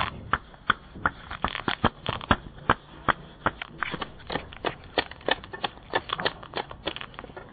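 Foley effects: a run of sharp clicks and knocks at an uneven pace, about three a second.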